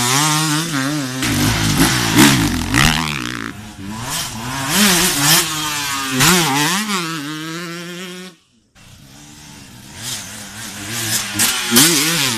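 Enduro dirt bike engines revving hard, the pitch rising and falling again and again with the throttle. The sound cuts off abruptly about eight seconds in, then an engine revs again.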